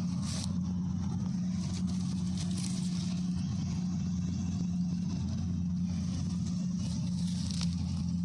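Kubota D70 combine harvester's diesel engine running steadily at working speed, a constant low hum with no change in pitch.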